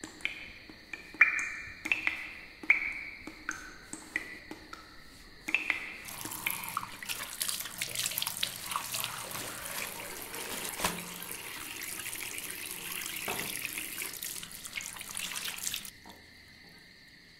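A few sharp, ringing plinks of water dripping into a washbasin, then a tap running steadily onto hands and into the basin. The water cuts off suddenly near the end.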